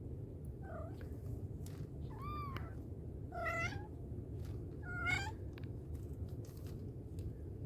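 Four short, high-pitched cat mews spread over about five seconds, the first one faint, each rising and then falling. A steady low rumble runs underneath.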